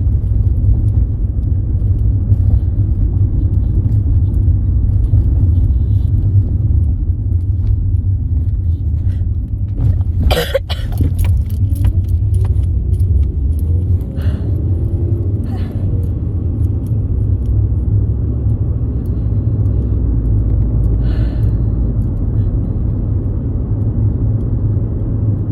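Steady low rumble of a car being driven, heard from inside the cabin, with a short clatter of clicks and rattles about ten seconds in.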